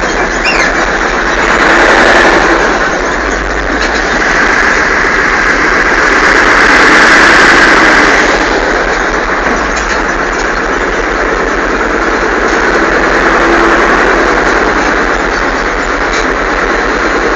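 A Sexton self-propelled gun's Continental R-975 radial engine and tracks running loudly as the vehicle drives along, heard from on board. The noise swells briefly about two seconds in and again for a couple of seconds mid-way.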